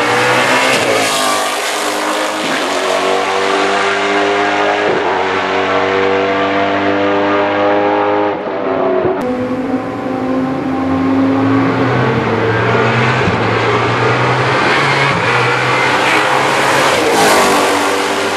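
Ford GT GT1 race car's 5.5-litre V8 accelerating hard, its pitch climbing and dropping back again and again through the gear changes. After a cut about halfway through, the car comes past again, loudest near the end.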